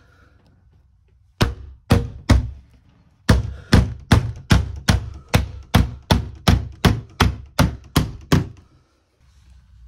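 Soft-faced mallet tapping a UPVC glazing bead back into the door frame to secure the refitted panel: three sharp thunks, a short pause, then a steady run of about fourteen blows at roughly three a second.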